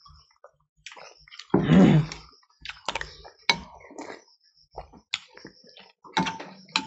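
Metal spoons clicking and scraping against glass bowls in a fast eating challenge, with close-up mouth sounds of eating. One louder, fuller mouth sound comes about a second and a half in.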